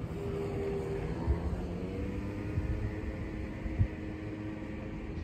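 Steady low rumble of a distant engine, with faint humming tones that drift slightly in pitch. Two brief dull bumps come about a second in and near the four-second mark.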